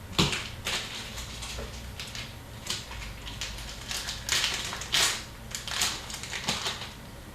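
Hockey trading cards being handled and sorted by hand: a run of short, irregular rustles and clicks.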